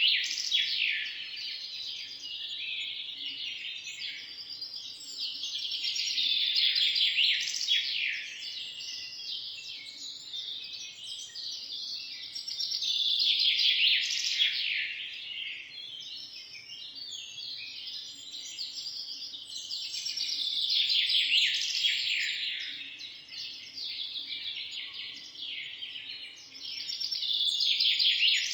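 A dense chorus of small birds chirping and twittering, many quick falling chirps overlapping, swelling louder and easing off about every seven seconds.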